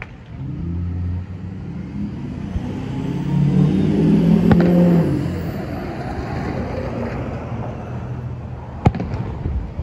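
A motor vehicle's engine running past, rising slightly in pitch, loudest about four to five seconds in, then fading. Distant aerial firework shells burst with sharp bangs, one in the middle and a louder one near the end.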